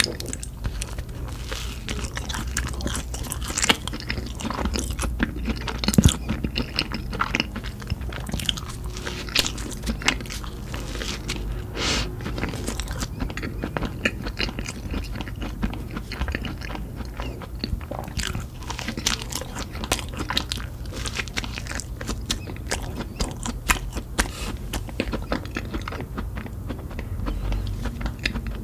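Close-miked eating: a person biting and chewing crunchy food, with many crisp crackles and crunches throughout, over a steady low hum.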